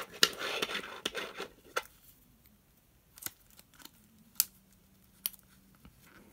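Clear plastic coin-album pocket pages rustling and crinkling as they are handled, for about the first two seconds. Then a few separate sharp clicks as a 50p coin is pressed into a plastic pocket.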